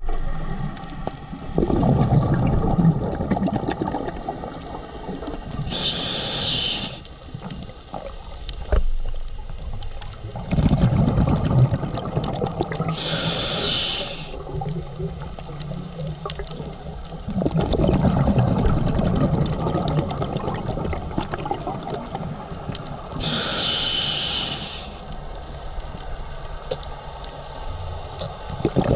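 A scuba diver breathing through a regulator underwater: a few seconds of bubbling rumble from exhaled air, then a short hiss of inhalation. The cycle repeats three times.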